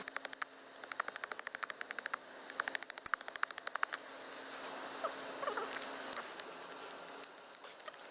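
A knife scraping and whittling a piece of wood, heard as fast runs of scratchy clicks, about ten a second, twice in the first half. Looser, scattered scraping follows.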